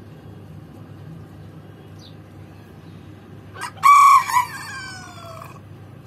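Rooster crowing once, a little over halfway through: a single loud crow of about two seconds that trails off falling in pitch.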